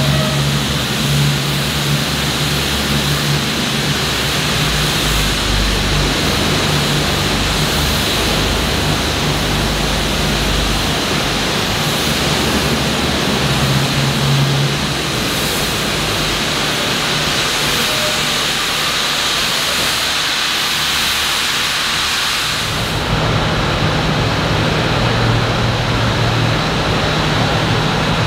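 Steady hiss of steam from a heritage steam locomotive standing below, over a low steady hum; the high part of the hiss thins about 23 seconds in.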